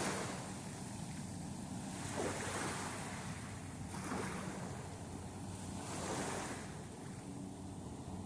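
Waves breaking and washing up a sandy beach, swelling and easing in washes about every two seconds.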